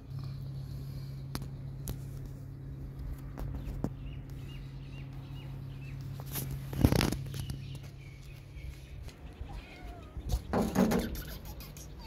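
A cat mewing faintly a few times over a steady low hum, with two louder rustling bumps, one about halfway through and one near the end.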